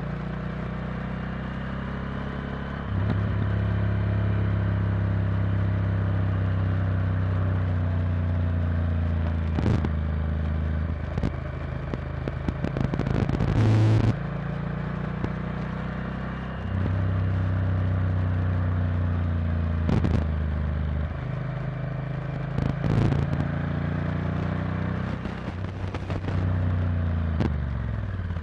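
Honda Varadero XL1000's V-twin engine running under way, recorded on board. The engine note steps louder and softer several times as the throttle is opened and eased through the bends. A few short rushes of noise cut across it.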